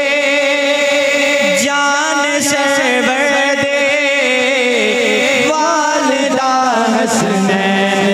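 Male voices singing a naat through microphones, in long held notes with ornamented bends in pitch over a steady lower note, which drops to a lower pitch about seven seconds in.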